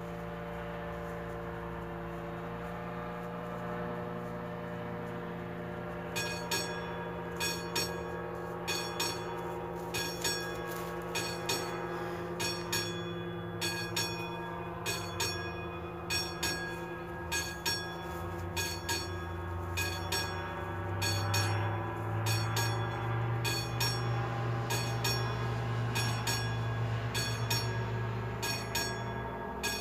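The classic striking bell of an AŽD 71 level-crossing warning signal starts ringing about six seconds in, at roughly two strikes a second, as the crossing is activated. Under it runs a steady low engine hum that grows louder over the second half as the train approaches.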